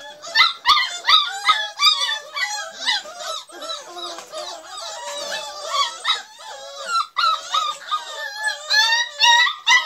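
A litter of beagle puppies crying and yelping all at once, a dense chorus of overlapping high-pitched calls that never lets up.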